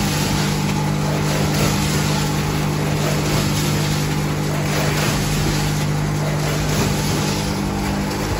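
Vertical form-fill-seal chip packaging machines running on a factory floor: a steady machine hum with a constant low drone.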